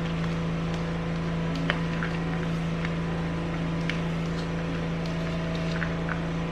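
Steady low motor hum with faint scattered light taps of a spoon mixing chopped onion in a small bowl.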